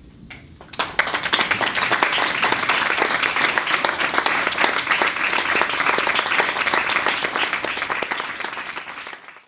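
Audience applauding. A couple of lone claps come first, then full applause from about a second in, easing slightly near the end before it cuts off.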